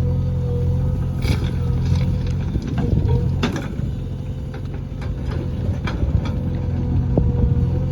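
JCB backhoe loader's diesel engine running steadily, with a steady whine above the rumble and scattered sharp knocks and clanks.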